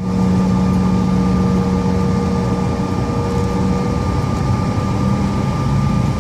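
Jet airliner's engines and rolling rumble heard from inside the cabin on the runway before takeoff: a steady loud noise with a low rumble and a few steady humming tones.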